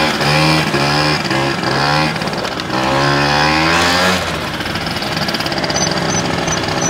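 Small moped engine revving up in several rising surges as it pulls away, then running steadily at a lower pitch from about four seconds in.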